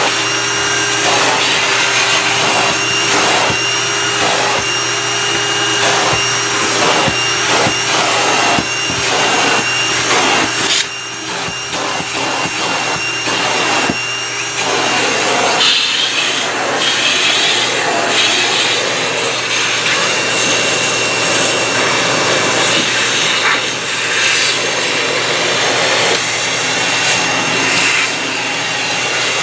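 National MC-250c vacuum cleaner running steadily with its crevice tool, a constant motor whine and hum under repeated scraping and rubbing strokes as the nozzle is worked along surfaces. The suction sound briefly drops about a third of the way in.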